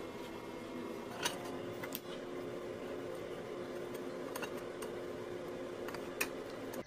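Steel chain links and a steel rod clinking against each other and the steel bending jig as they are handled, a handful of sharp separate clinks, over a steady background hum.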